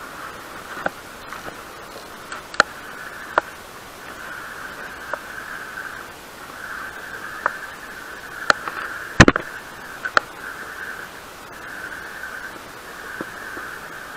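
Steady hiss with scattered sharp clicks and taps, the loudest about nine seconds in, from handling a spinning rod, reel and line.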